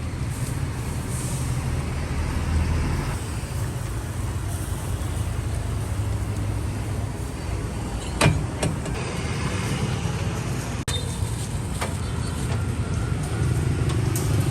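Steady low rumble of road traffic and vehicle engines, with a sharp click about eight seconds in.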